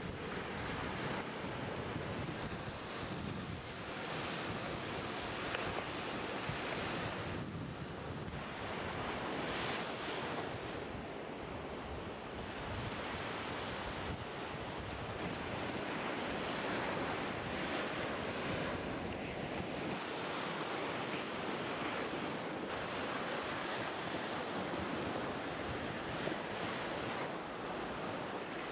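Sea surf breaking on a sandy beach: a continuous rushing wash that swells and eases as the waves come in.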